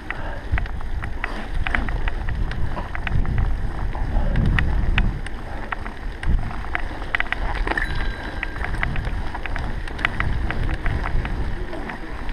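Wind buffeting the microphone as a steady low rumble, with irregular sharp clicks and ticks scattered through it.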